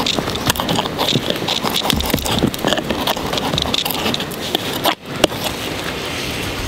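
Knife cutting raw steak into cubes on a log, a run of irregular knocks and taps of the blade against the wood, broken by a short dip about five seconds in.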